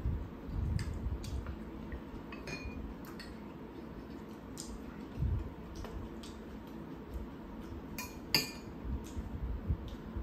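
Spoons and chopsticks clinking and tapping against bowls and a pan during a meal: scattered sharp clicks, with a few dull low bumps between them.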